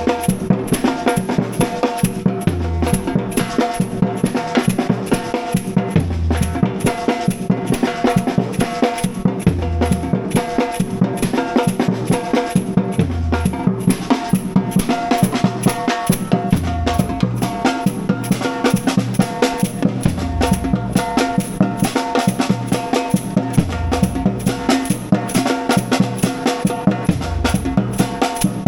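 Background music with a steady, busy percussion beat and a deep bass note that returns every few seconds.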